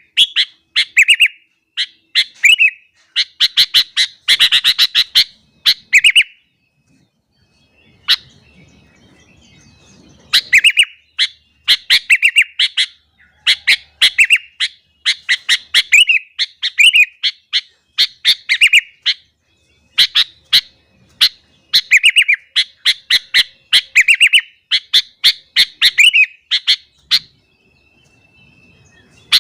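Sooty-headed bulbul (kutilang) singing hard: bursts of quick, bright chirping notes, phrase after phrase, with a pause of a few seconds about a quarter of the way in and another near the end.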